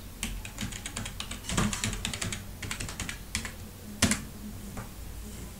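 Typing a password on a computer keyboard: a quick run of key clicks, then a single louder click about four seconds in.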